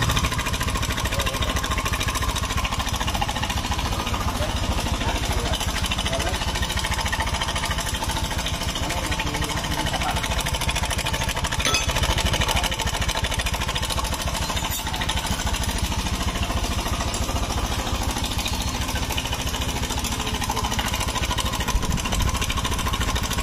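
Honda Scoopy single-cylinder scooter engine running steadily with its CVT parts removed, giving off a rapid, even mechanical clatter. The noise is still there without the CVT, which the mechanic takes to mean the fault lies in the engine itself, at the cam chain tensioner.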